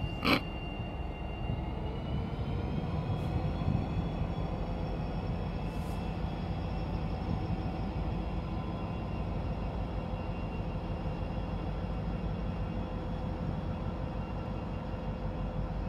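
Diesel engine of an EMD SD40-2 locomotive running under load as it moves off, a steady low rumble with a high whine that rises in pitch about two seconds in. A sharp knock about a third of a second in.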